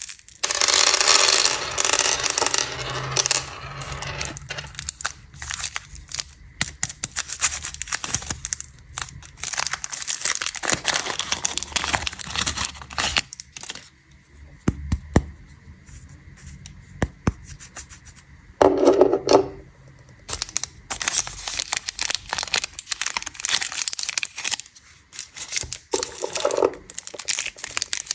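Plastic candy wrappers crinkling and tearing, with hard candies clicking and clattering against each other. It comes in dense crackly stretches with a quieter spell about halfway through.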